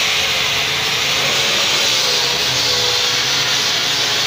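A loud, steady rushing hiss that neither rises nor falls.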